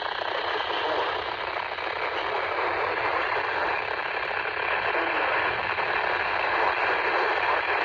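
Steady radio static hiss from a weather radio receiver, with no voice on the channel.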